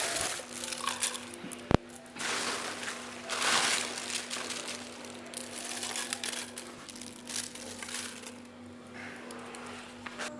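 Irregular crinkling rustles, with one sharp click about two seconds in, over a steady low hum.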